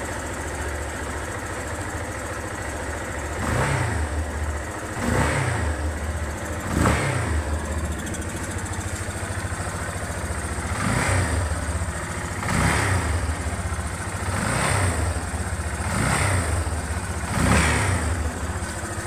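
Yamaha Fazer 250's single-cylinder engine idling and blipped about eight times, each rev rising and falling back to idle, with a hissing intake noise that the owner puts down to the air filter and air intake.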